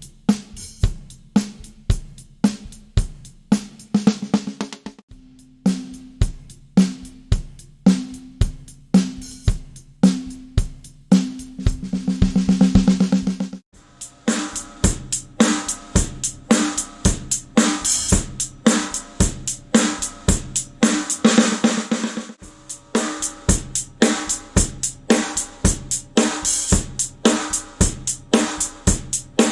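Drum kit played as a groove featuring a Pearl brass-shell free-floating piccolo snare with a sharp crack, over bass drum and hi-hat. About halfway through, a swelling snare roll leads into busier playing with ringing cymbals.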